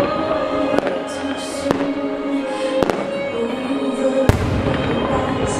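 Aerial firework shells bursting: four sharp bangs roughly a second apart, the loudest and deepest about four seconds in, over steady music.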